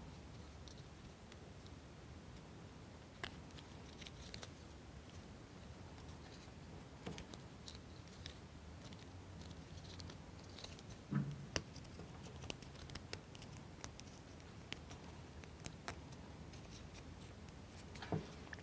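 Faint, scattered clicks and taps of small wooden kit parts being handled and pressed together by hand.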